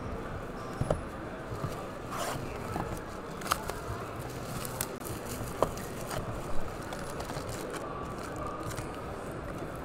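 Foil-wrapped trading-card packs and a card box being handled on a table: a few sharp taps and crinkles, over the steady hum of a busy hall.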